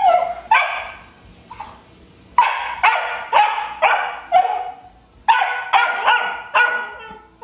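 A 12-week-old Rhodesian ridgeback puppy barking in short, high-pitched yaps, about a dozen in two quick runs with a brief pause in between. These are demand barks, begging for a rawhide that another dog is chewing.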